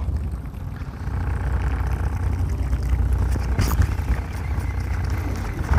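Steady low drone of a fishing boat's engine running at sea, with a faint haze of wind and water over it. A single short click comes a little past halfway.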